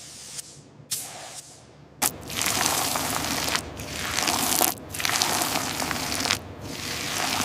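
Paint spray gun spraying a protective coating in long hissing bursts, with brief breaks between passes. It starts about two seconds in, after a few sharp clicks.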